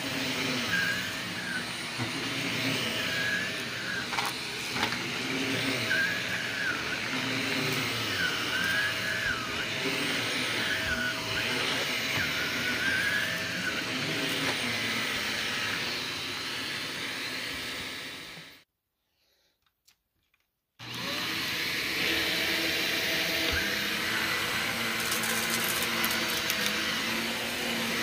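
Upright vacuum cleaner running over a shag rug and carpet, its whine wavering up and down in pitch every couple of seconds. The sound cuts out completely for about two seconds past the middle, then the vacuum runs on steadily.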